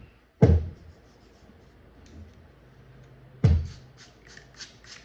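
Two sharp knocks, then a quick run of short scratchy scrapes, about four or five a second: a straight razor and a wet Japanese natural whetstone being handled and worked.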